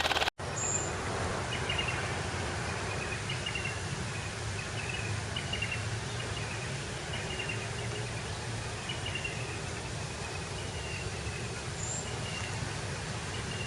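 A small motor's hum cuts off abruptly just after the start. It gives way to steady outdoor background hiss with a short, slightly falling chirp repeating about once a second, from a bird or insect.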